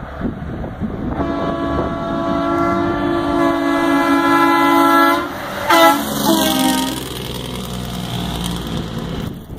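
Semi-truck's horn blowing a long, steady chord for about four seconds, then a short second blast whose pitch drops as the truck passes, over the rumble of the truck's engine.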